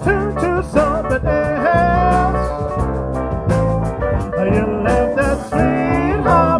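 Live band playing: drum kit, bass, keyboard and electric guitars, with a lead melody line that bends and wavers in pitch over the steady rhythm.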